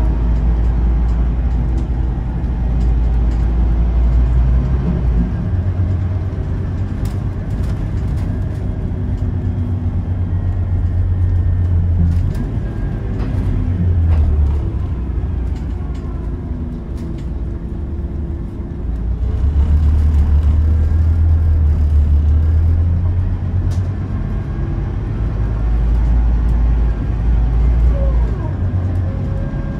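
Scania OmniLink city bus heard from inside the passenger cabin while driving: the diesel engine pulls and eases off several times as the ZF Ecomat automatic gearbox works through the gears, with a rising whine near the end. Scattered creaks and rattles come from the interior plastic trim.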